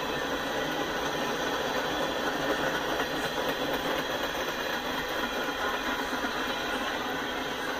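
Freight train tank cars rolling past, their steel wheels running on the rails with a steady rumble and rattle.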